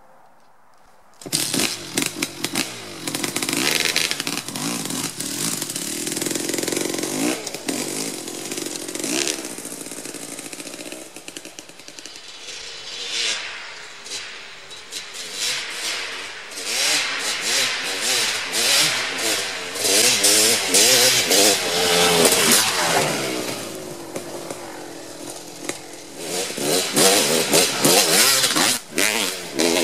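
2003 Kawasaki KX250 two-stroke motocross engine with an FMF Gnarly pipe and Pro Circuit 304 shorty silencer, kick-started and catching about a second in, then revved in sharp blips. It is then ridden along the trail, the exhaust note rising and falling through the gears and growing fainter and louder again as the distance changes.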